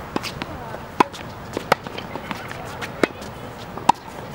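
Tennis ball struck by rackets and bouncing on a hard court during a rally: sharp pops about once a second, the loudest about a second in, near the middle and near the end.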